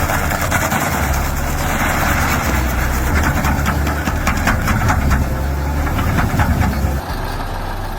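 Stump grinder running under load as its cutter wheel grinds into a wood stump: a steady engine sound with a dense scatter of sharp cracks. The sound cuts abruptly to a quieter, different engine sound about seven seconds in.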